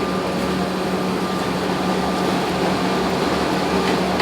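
Diesel engine of a tracked excavator running steadily, a low even hum with no change in pitch.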